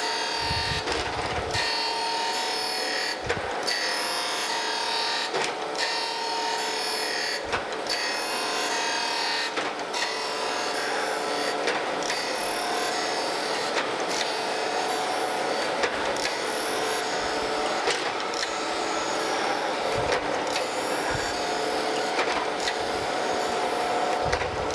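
Landis surface grinder running, its wheel grinding the bottom face of a cast straight-edge casting as the table goes back and forth. It is a steady grinding hiss over a machine hum, with a brief break about every two seconds.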